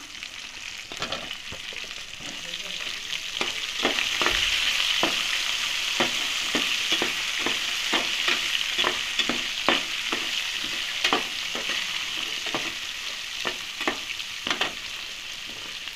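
Onions, green chillies and tomatoes sizzling in hot oil in an aluminium pot, stirred with a flat metal spatula that scrapes and clicks against the pot again and again. The sizzle gets louder about four seconds in.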